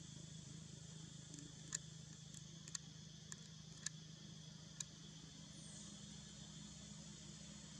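Faint steady hum and hiss with about seven short, sharp clicks scattered through the first five seconds, a couple of them in quick pairs.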